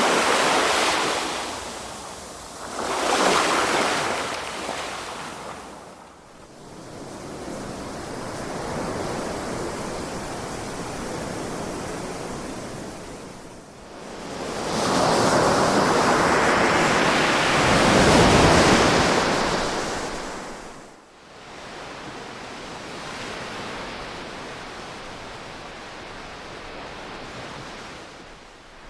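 Ocean waves breaking and washing in, in slow surges. Two short swells come near the start, then a longer, louder one through the middle that lasts about five seconds, with a softer steady wash between them.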